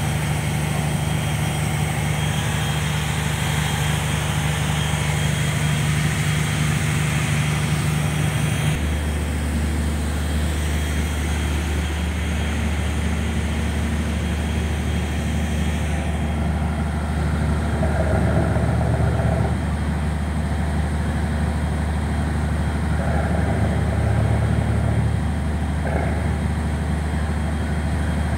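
Heavy diesel engine of a steel fishing boat running steadily; about nine seconds in, its note drops to a lower hum.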